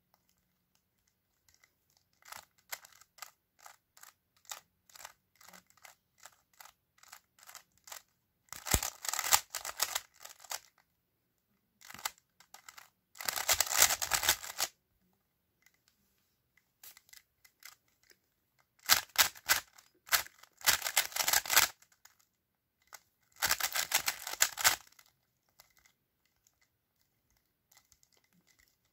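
Stickerless 3x3 speedcube's layers being turned, clicking and clacking. Scattered single turns at first, then five quick runs of turns, each one to two seconds long, as PLL algorithms are performed with finger tricks.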